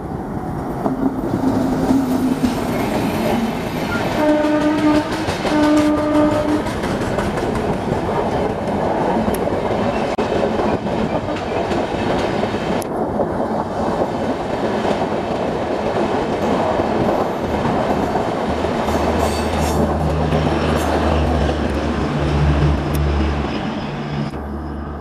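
An ALCO WDM3A diesel locomotive sounds its horn, a short tone and then two short blasts in the first six seconds, as it passes at speed. A long rake of passenger coaches follows, rushing past with wheels clattering over the rail joints. Near the end a low steady hum is heard as the train's yellow generator car goes by.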